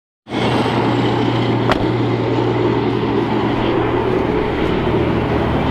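A car running, a steady low drone with a single short click about a second and a half in.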